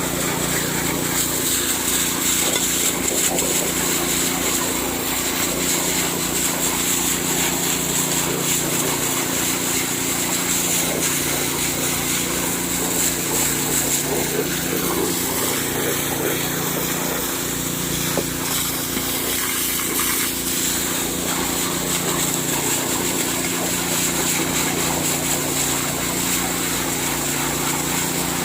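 Small petrol-engine water pump (alkon) running steadily, its engine speed wavering slightly up and down.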